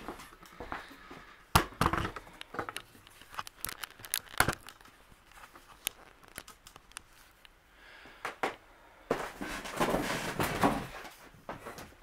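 Handling noise as a camera is carried and set down, and as a person moves close to it: a string of sharp knocks and clicks, then about two seconds of dense rustling and crinkling near the end.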